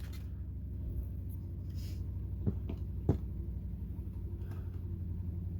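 Steady low hum with a couple of faint clicks about two and a half and three seconds in, from handling the parts of a plastic phone tripod.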